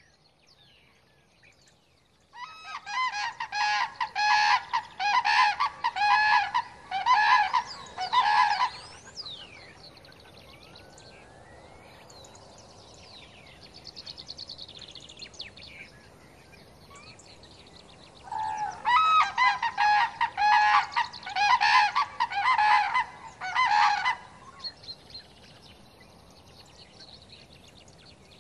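Common cranes calling: a pair giving loud, rapidly repeated honking calls together in two bouts of about six seconds each, the first starting about two seconds in and the second about eighteen seconds in. Faint chirps of smaller birds come between the bouts.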